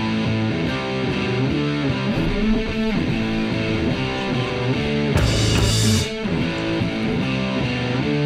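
Upbeat rock music led by guitar, with a loud crash about five seconds in.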